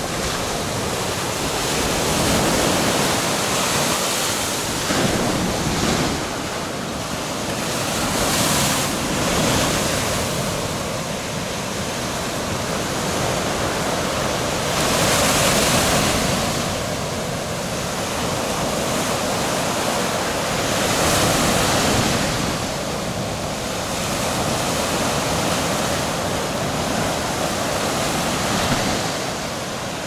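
Small Baltic Sea waves breaking and washing up a sandy shore: a continuous wash of surf that swells every few seconds as each wave breaks and hisses up the beach.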